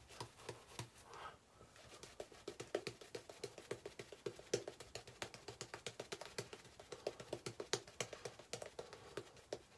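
Shaving brush working lather onto a face: a faint, quick, irregular patter of small clicks as the bristles are dabbed and swirled over the skin, starting about two seconds in.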